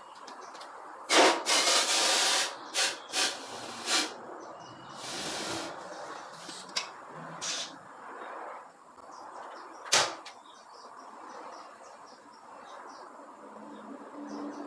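Several short bursts of hissing air, the longest lasting about a second and a half, then a single sharp click about ten seconds in.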